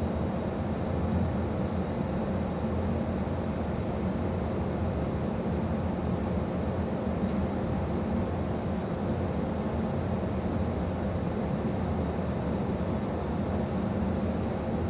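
Steady cockpit noise of an Airbus A220-300 on approach: an even rush of airflow and engine drone, heaviest in the low end, with a faint steady hum running under it.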